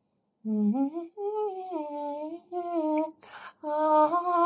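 A woman humming a slow tune in long held notes that glide up and down, with a quick breath about three seconds in.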